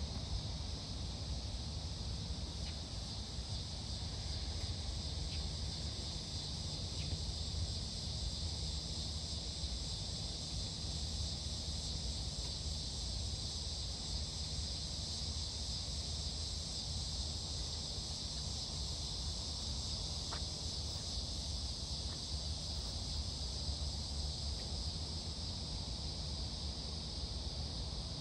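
Steady high-pitched insect chorus, a continuous even buzz, over a constant low rumble.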